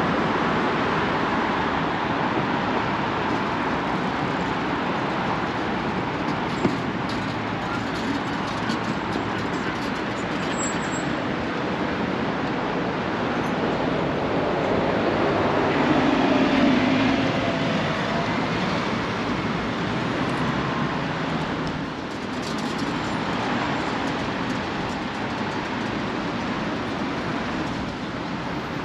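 Steady, loud rumble of city vehicles, swelling a little past the middle, with faint whining tones sliding up and down at the swell.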